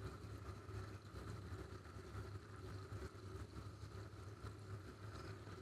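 Tabletop rock waterfall fountain running: a faint, steady trickle of water over a low hum from its small pump, freshly primed and circulating properly.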